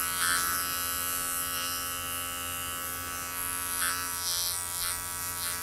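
Wahl Creativa cordless clipper with its 5-in-1 blade set to a 15, buzzing steadily as it clips a toy poodle's curly coat.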